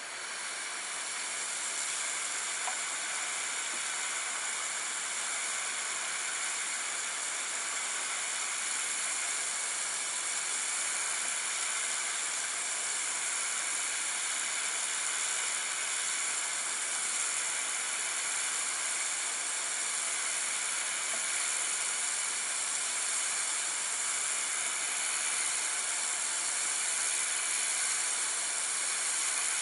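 Kärcher K2 Compact electric pressure washer spraying a jet of water onto a rough textured wall. It makes a steady hiss that builds over the first couple of seconds, then holds even.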